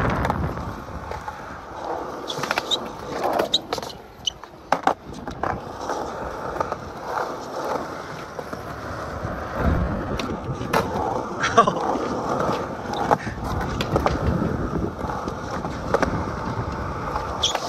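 Skateboard wheels rolling over concrete, with sharp clacks and knocks from the board striking the ground or the park's edges several times.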